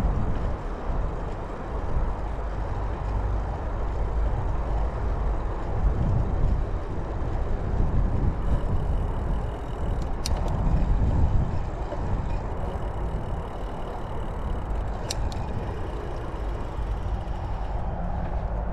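Wind buffeting the microphone of a bicycle camera on the move: a steady low rumble that rises and falls in gusts, with two sharp clicks about ten and fifteen seconds in.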